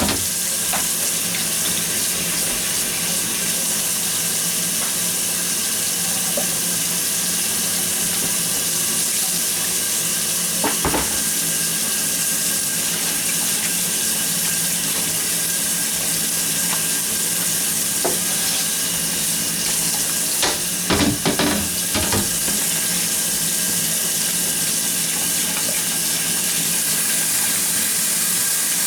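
Kitchen tap running steadily into a sink as a glass refrigerator shelf is rinsed, with a few short knocks, one about 11 seconds in and a small cluster around 21 seconds in.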